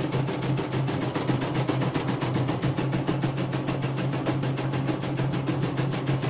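CNY computerized embroidery machine stitching a test design: the needle mechanism makes a rapid, even clatter of about ten stitches a second over a steady low hum.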